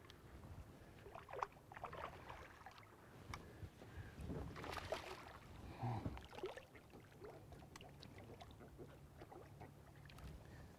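Faint water splashing and sloshing as a hooked sea catfish is brought to the surface beside a boat's hull and lifted out by the line, with a few small knocks; the loudest splashes come around the middle.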